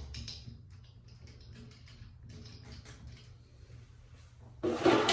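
Faint clicks and scrapes of doorknob hardware as the long through-screws are driven in with a screwdriver, then a louder clatter about four and a half seconds in.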